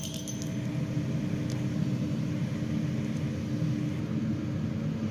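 Motorized target carrier at an indoor range running steadily as it draws the paper target up to the shooting stall: a low, even rumble with a faint constant hum.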